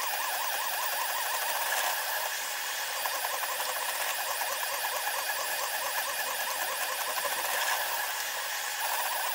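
SeeMeCNC Orion delta 3D printer's stepper motors whining at a rapidly wavering high pitch over a hiss as the print head moves, the whole recording sped up tenfold.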